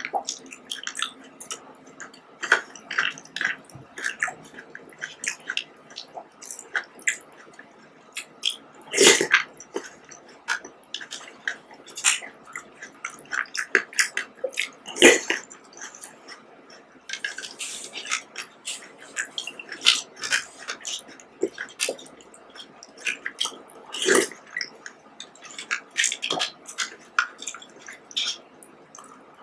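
Mukbang eating sounds from cup jelly with red grapes: a plastic spoon clicking and scraping in clear plastic cups, with wet squishing, slurping and chewing of the jelly and grapes. The sounds come irregularly, with a few louder wet smacks about 9, 15 and 24 seconds in.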